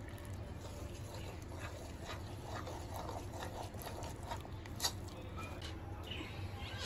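A steel spoon stirring water into flour and cornflour in a bowl to make batter: faint wet scraping and light clinks against the bowl, with one sharper tap about five seconds in.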